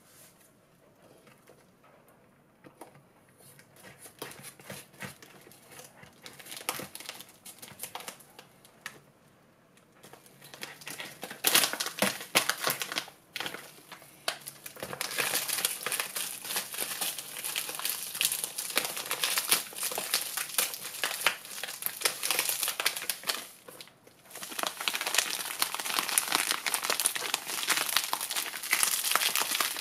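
Packet of organic sugar crinkling as it is handled and opened, a dense run of irregular crackles. It starts faint and turns loud about a third of the way in, with brief lulls.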